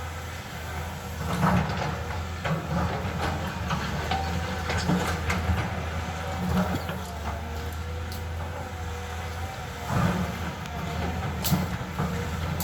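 Caterpillar excavator running steadily, with repeated metallic clanks and knocks from the machine working.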